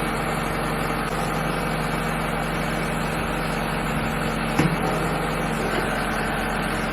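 Backhoe engine idling steadily, with one short knock about four and a half seconds in.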